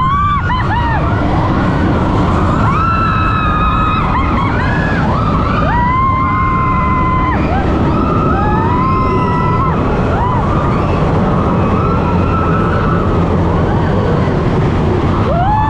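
Big Thunder Mountain mine-train roller coaster running at speed: a loud, steady rumble of the train and rushing air, with long wailing cries that rise and fall over it.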